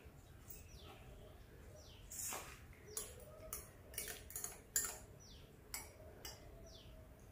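Metal spoon stirring a stemmed drinking glass, clinking against the glass about eight times over a few seconds. A bird repeats a short falling chirp about once a second in the background.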